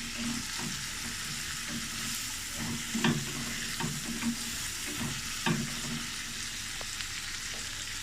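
Chopped onion, capsicum and tomato sizzling steadily in hot oil in a pan while a spatula stirs them, scraping against the pan in repeated strokes, with sharper scrapes about three and five and a half seconds in.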